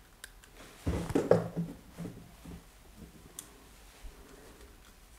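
Handling noise from a Panasonic Lumix DMC-TZ22 compact camera as a battery is fitted: a soft knock about a second in, then small scattered clicks.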